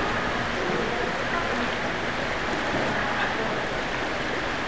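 Steady splashing and churning of pool water as several people exercise in chest-deep water in an indoor swimming pool, with faint voices in the background.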